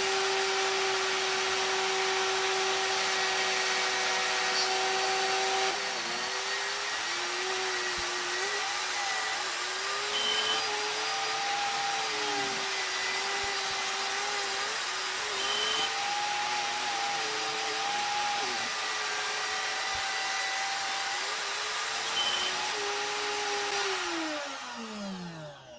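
Small metal lathe running under power with a steady motor whine. After about six seconds, in 8x fast-forward, the whine wavers up and down as the spindle is stopped and reversed between thread-cutting passes. Near the end it spins down, its pitch falling away.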